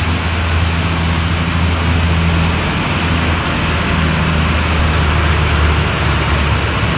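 Diesel engine of an aircraft fuel tanker truck running as the truck drives slowly past at close range: a steady low engine hum with a broad hiss over it.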